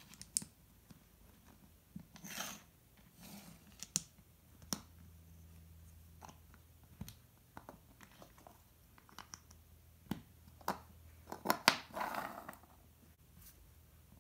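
Plastic Lego bricks being handled, snapped together and set down on a wooden tabletop: scattered sharp clicks and short scraping sounds, with a denser run of clicks and a scrape about twelve seconds in.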